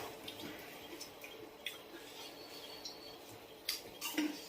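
Quiet eating of crisp puchka shells: a few short, soft crunches and clicks, one about two seconds in and another near the end.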